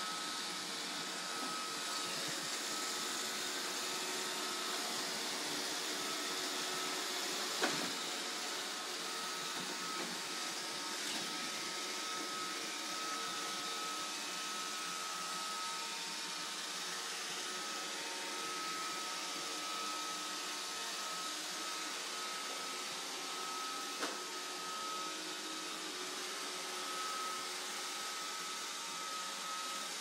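Roomba robot vacuum running steadily, a motor hum with a high whine through it. Two sharp knocks come through, one about a quarter of the way in and one about four-fifths of the way in.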